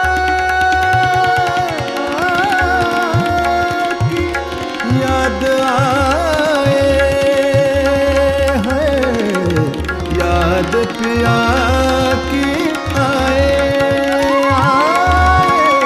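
Hindustani classical thumri: a male voice sings long wordless phrases that slide and waver up and down. Under it, tabla keeps time with deep bass-drum strokes and harmonium holds sustained notes.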